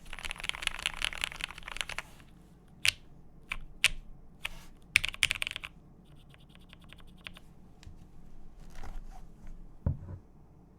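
Cyberboard R3 mechanical keyboard with lubed and filmed Cherry MX Hyperglide switches on a polycarbonate plate being typed on. A fast run of keystrokes is followed by scattered single presses, a short burst about five seconds in, lighter quick tapping, and a low thump near the end.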